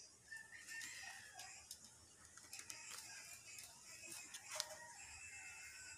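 Faint handling of a ring-binder planner: paper dividers and pages turned, with soft rustles and small clicks, the sharpest about four and a half seconds in. Faint bird calls sound behind.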